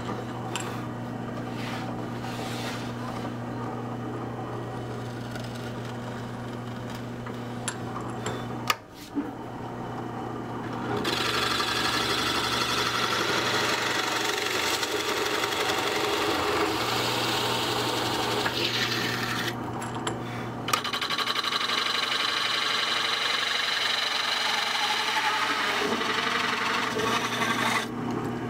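A power tool running, first a steady hum, then two long, loud passes of it working into material, with a short pause between them.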